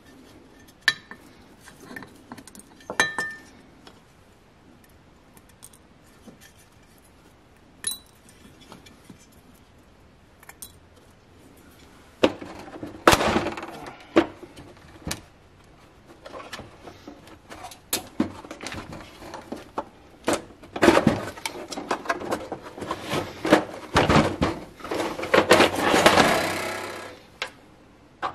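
Hand work on a pressed-steel toy and its parts: scattered clinks and taps at first, then from about halfway repeated bursts of scraping and rubbing mixed with sharp metallic clanks, the longest stretch of scraping near the end.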